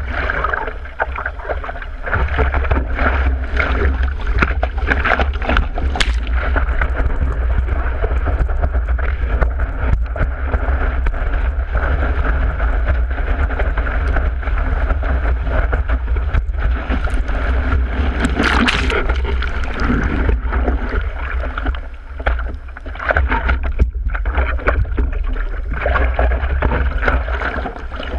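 Seawater rushing and splashing over the nose of a surfboard as it is paddled and then ridden on a wave, with a heavy steady rumble of water and wind buffeting underneath. There is a louder surge of spray a little past halfway.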